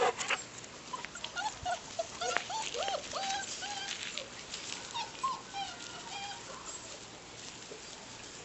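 Bernese Mountain Dog puppies whimpering: a run of short, high whines that bend up and down in pitch, thickest from about one to six seconds in and thinning out toward the end.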